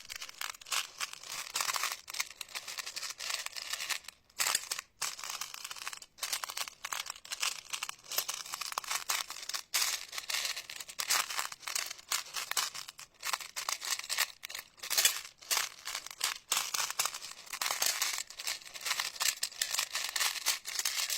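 Slime being squeezed and pressed by hand, making a dense run of crackles and small pops with a few brief breaks.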